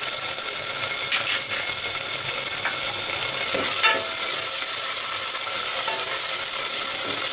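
Chopped garlic and green chili sizzling in hot oil in a non-stick pot over a turned-down gas flame, stirred with a spatula, with a couple of short scrapes about one second and about four seconds in.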